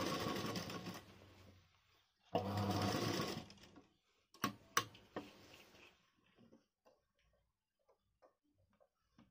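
Sewing machine stitching in two short runs: the first dies away about a second in, the second starts just after two seconds and lasts about a second. Two sharp clicks follow, then only faint handling noises.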